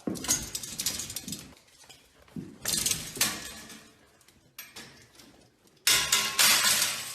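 Four bursts of clattering and clinking from hard objects knocked about, the last one the loudest and carrying a brief ringing tone.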